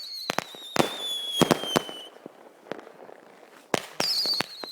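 Whistling fireworks: a high whistle sliding slowly down in pitch, broken by sharp bangs, dies away about two seconds in. A second whistle with more bangs starts near the end.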